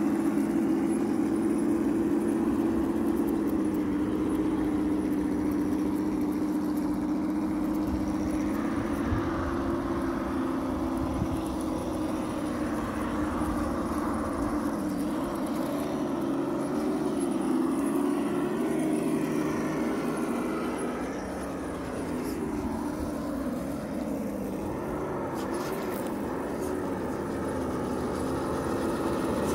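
A steady motor hum whose pitch wavers up and down, dipping a little in level about two-thirds of the way through.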